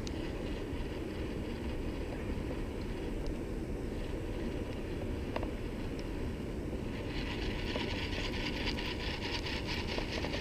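Baitcasting reel being cranked to retrieve a lure, a fast ticking whir that starts about seven seconds in, over a steady low rumble.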